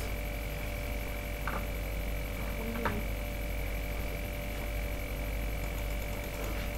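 Steady electrical hum with a high, even whine over it, with two faint clicks about a second and a half and three seconds in.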